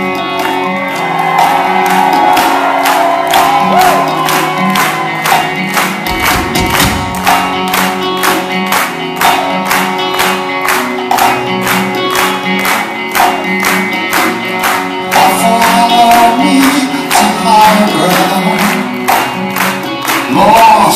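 Live rock band playing an electric guitar, bass and drum-kit groove, with the audience clapping along in time at about two claps a second.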